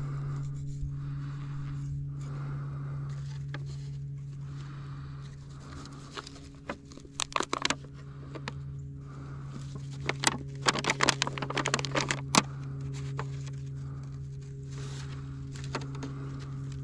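Bunches of sharp clicks and scrapes, like handling noises, about six seconds in and again about ten seconds in, over a steady low hum.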